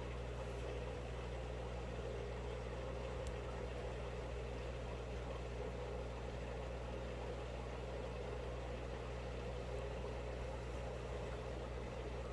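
Aquarium pump running with a steady, unchanging low hum.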